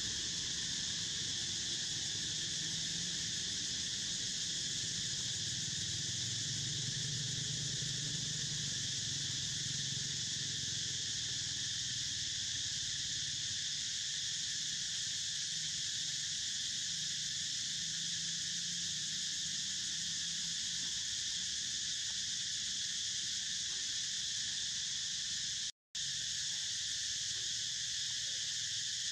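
A steady chorus of insects, a high continuous drone in several layered bands, with a faint low rumble under it in the first half. It cuts out for a split second near the end.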